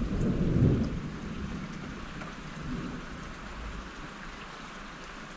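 A low roll of thunder that fades away about a second in, over steady falling rain.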